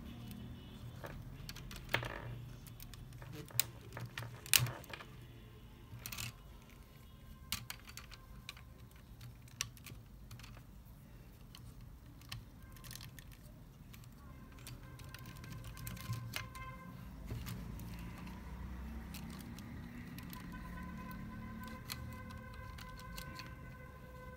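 LEGO Technic plastic parts clicking and rattling as modules are snapped onto a chassis by hand, with irregular sharp clicks, the loudest about four and a half seconds in. Faint music plays underneath.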